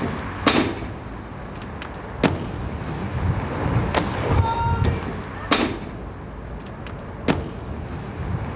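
Inline skate wheels rolling on hard pavement, a steady low rumble broken by five sharp clicks or knocks about a second and a half apart.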